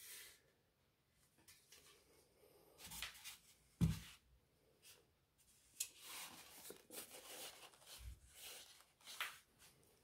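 Faint handling noises: cotton-gloved hands rubbing and shifting a steel air-raid helmet and setting it onto a display head, with a few soft knocks, the clearest about four seconds in, and light rustling in the second half.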